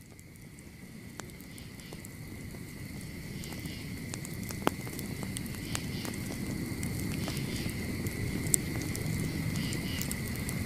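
Wood campfire burning, with scattered sharp pops and crackles over a low steady rush that grows louder over the first few seconds. A faint steady high tone runs underneath.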